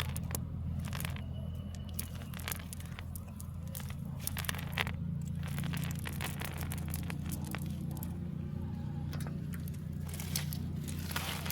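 A steady low drone, like a small engine running, with scattered crackling and scraping clicks over it.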